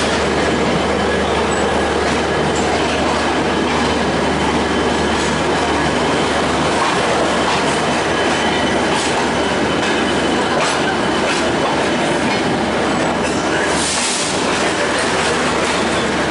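Express train coach running at speed through a station: a steady rolling rumble of wheels on rail, with clicks as the wheels cross rail joints and points. There is a louder rush near the end.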